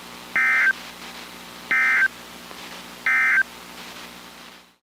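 Three short bursts of NOAA Weather Radio SAME data tones, a warbling digital chirp about 1.3 s apart: the end-of-message code that closes the broadcast. A faint steady radio hiss runs between the bursts, and the audio drops out completely for a moment near the end.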